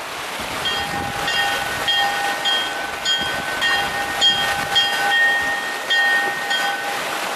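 Church bells ringing, struck over and over about one and a half times a second, starting about a second in, over the steady wash of waves and wind.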